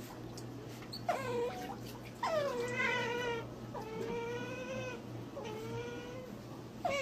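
An otter whining in a series of five drawn-out, high calls, each dropping quickly in pitch and then held, about a second or two apart.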